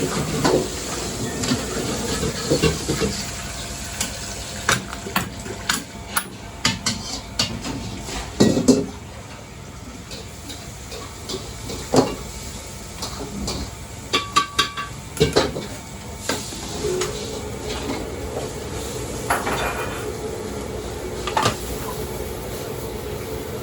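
Restaurant kitchen clatter: irregular knocks and clinks of metal pots, pans and utensils over a steady background hiss of the kitchen.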